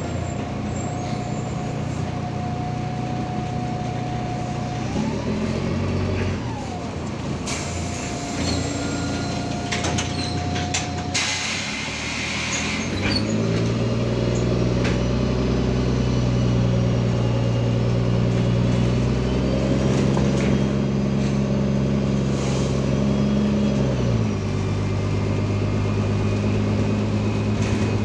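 Diesel engine and road noise of a MAZ-203 city bus heard from the passenger cabin. About eleven seconds in comes a short hiss of compressed air from the bus's pneumatics. The engine note then rises and holds louder until it drops back about 24 seconds in.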